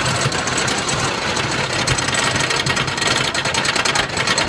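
Lightning Racer wooden roller coaster train rattling steadily, a rapid mechanical clatter with a low hum beneath it, heard from a rider's seat.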